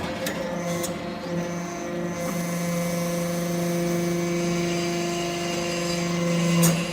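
Hydraulic metal-chip briquette press running: a steady hum from its motor and hydraulic pump that grows stronger about two seconds in, with a sharp click near the end.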